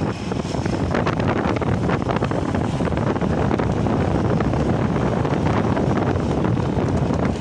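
Steady wind buffeting the microphone of a moving motorcycle, mixed with the motorcycle's engine and road noise.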